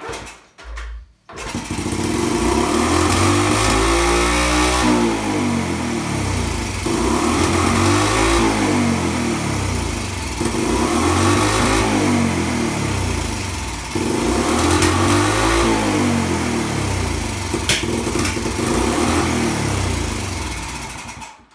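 1981 Honda Passport C70 (Super Cub) 72cc single-cylinder four-stroke being kick-started. It catches within about a second and then runs fast, its pitch rising and falling about five times before it shuts off near the end. The idle is really high, which the owner puts down to the throttle slide not going all the way down in the freshly cleaned carburetor.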